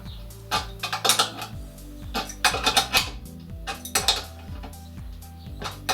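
Irregular metal clinks of an adjustable spanner on a threaded brass air fitting as a quick-release coupler is screwed clockwise into a compressor outlet.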